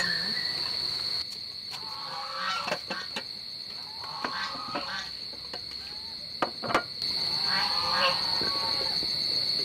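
Clinks and knocks of ceramic plates being set down on a wooden table, two louder ones near the end, over a steady high insect trill, with scattered short animal calls in the background.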